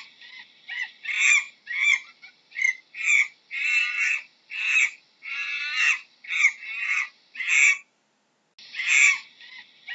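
Monkey calls: a quick series of short, high-pitched calls, about two a second, broken by a brief silence near the end.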